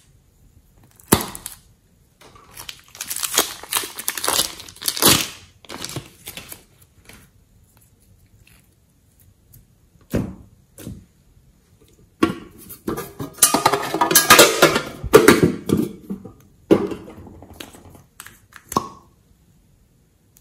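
Plastic piping bag crinkling and crackling as it is squeezed by hand, pressing soft clay out onto slime. The sound comes in two longer stretches, with short bursts between them.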